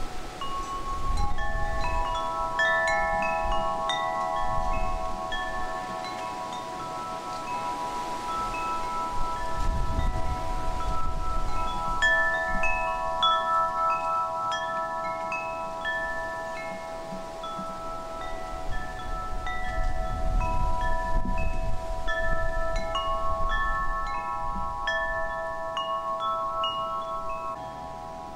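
Wind chimes ringing: many metallic notes struck at irregular moments, each ringing on and overlapping the others, over low gusts of wind rumbling on the microphone.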